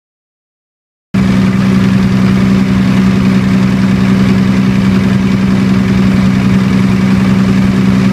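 Diesel generator engine running steadily on diesel with propane added, a constant hum with a strong low tone. It cuts in abruptly about a second in.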